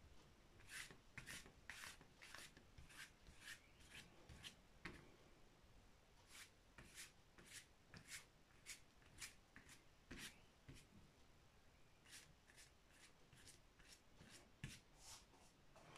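Faint paintbrush strokes on canvas, a run of short scratchy brushes and dabs at about two a second, pausing briefly near eleven seconds in.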